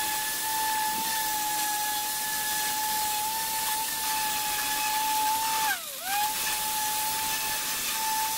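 Electric orbital sander running against a bicycle frame, sanding the paint back: a steady high whine over a hiss. About six seconds in, the pitch dips sharply for a moment and then comes back up.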